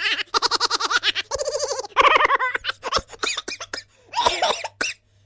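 Comic laughter sound effect: a voice laughing in quick, evenly spaced pulses, in three runs over the first two and a half seconds. It ends in a scatter of short clicks and a few breathy bursts.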